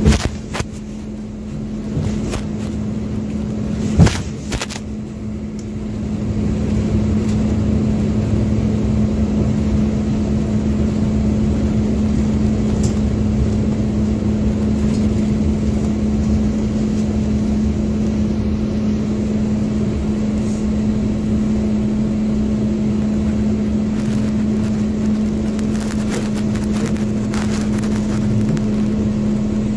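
MAZ 205 articulated city bus running, heard from the passenger cabin: steady engine and road noise with a constant hum. There is a sharp knock at the very start and another about four seconds in, and the noise grows louder about six seconds in and stays up.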